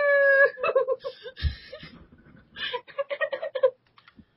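Giggling in quick short bursts, heard over a Skype call, with a soft low thump about a second and a half in.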